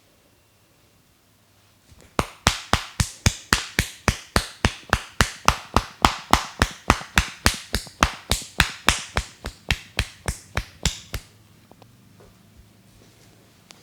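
Hands striking the head in a rhythmic percussive head-massage tapping: a run of about forty sharp claps, four to five a second, starting about two seconds in and stopping a couple of seconds before the end.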